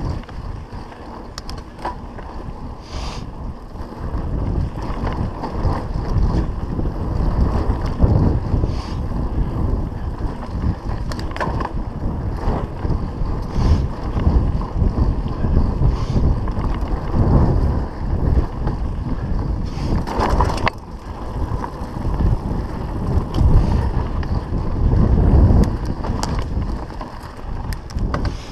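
Mountain bike ridden fast down a dirt singletrack: wind noise buffeting the microphone over the hum of knobbly tyres on dirt, with the bike rattling and knocking over bumps and roots.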